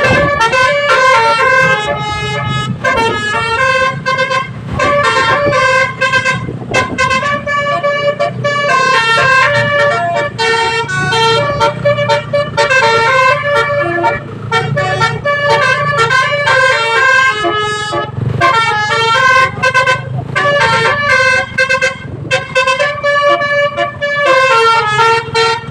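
Basuri telolet horn of a Sanjaya Trans bus playing a tune: an air horn sounding one quick run of stepped notes after another, up and down in pitch, almost without pause, over a low rumble.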